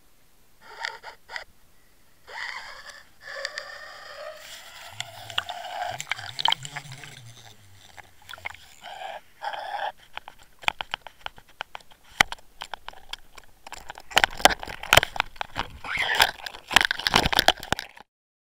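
Scraping, knocking and clicking picked up underwater by a Waterwolf camera rigged on a fishing line while a hooked pike thrashes on the lure. It becomes a dense run of sharp clicks in the second half and cuts off abruptly near the end.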